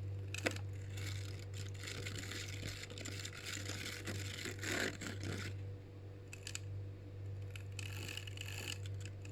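Mixing tool stirring shampoo and toothpaste in a bowl: irregular scraping strokes, over a steady low electrical hum.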